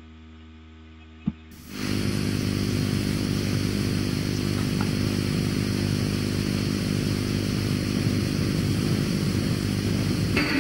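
A steady running engine, most likely an old motorcycle's, cuts in about two seconds in after a faint hum and a click, and runs evenly; guitar music starts just before the end.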